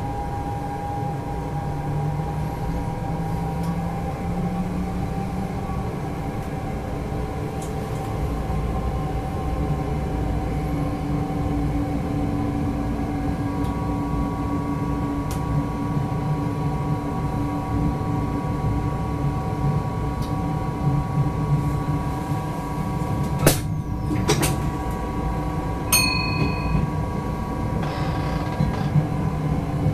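Electric passenger train heard from the driver's cab: a steady whine from the traction equipment over the rumble of the wheels on the rails. Two sharp knocks come about three quarters of the way through as the train runs over points, followed shortly by a short high beep.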